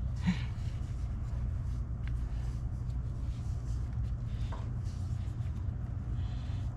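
Paintbrush scratching primer onto the cast iron of a 1941 Axelson engine lathe: soft, scattered brushing sounds over a steady low hum.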